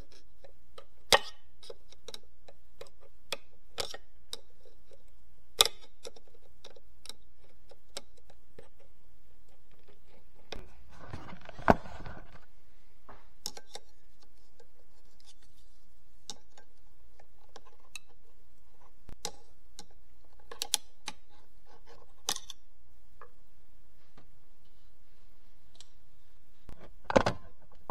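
Scattered sharp metallic clicks and clinks at irregular intervals as hand tools work on the reverse idler's snap ring inside a Getrag HM290 five-speed manual transmission case.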